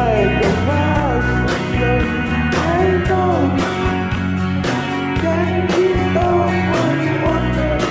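Rock song playing: a voice singing a melody over guitars, bass and a steady drum beat.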